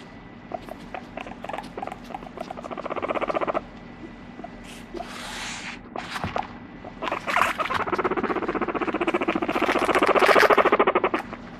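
Abyssinian guinea pig purring: a rapid buzzing rattle, first in a short run about two seconds in, then a longer run from about seven seconds that swells and stops near the end, while her head is being stroked. A brief rustle about five seconds in.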